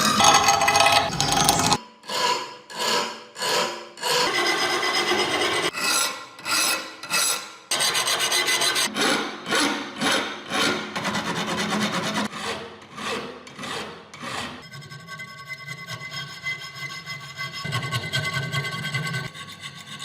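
Hand abrasion on an antique rusty kukri: rhythmic back-and-forth rasping strokes, about one and a half a second, settling into quieter, steadier scraping in the last few seconds.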